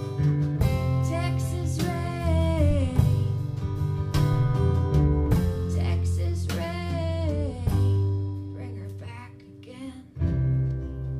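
Woman singing live with strummed acoustic guitar accompaniment. The music dies down about nine seconds in, then the guitar strums again near the end without the voice.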